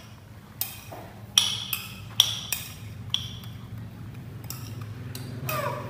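Metal spoon clinking against a ceramic bowl: about six short, sharp clinks in the first three and a half seconds, over a low steady hum.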